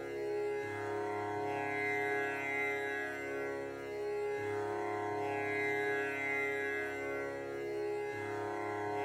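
Meditative background music: a sustained drone of many held tones, with a low note that shifts about every four seconds.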